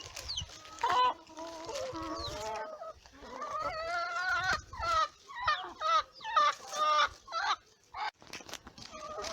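A flock of chickens clucking as they fight over bread scraps, with a quick run of short calls at about two a second past the middle.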